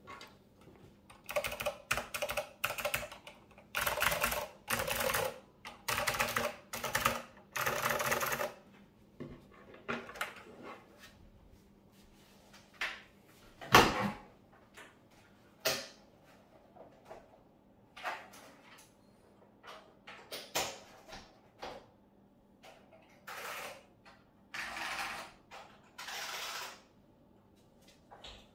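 Handling noise from a vintage mechanical keyboard being moved and swapped on a wooden desk: a quick series of sliding and rattling bursts in the first eight seconds, one sharp thump about fourteen seconds in, then scattered lighter bumps.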